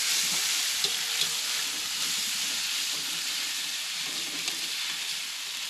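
River prawns frying in a non-stick (Teflon) pan, sizzling with a steady hiss. A spatula stirs them, giving a few light clicks.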